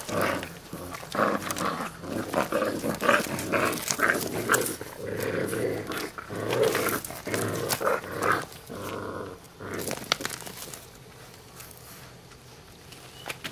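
Two Cane da Presa Meridionale puppies growling at each other in play while tussling over a toy, in repeated short growls that die down after about nine seconds.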